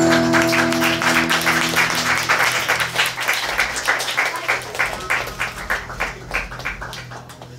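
The song's last held chord rings out and stops about two seconds in, under audience applause that thins and fades away toward the end.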